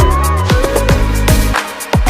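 Electronic background music with a steady beat, bass and a lead melody; the beat drops out briefly near the end.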